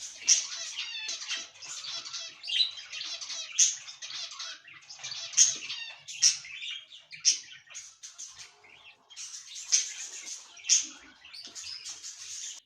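A group of pet cockatiels chattering and calling without pause, with sharp, louder squawks standing out about once a second.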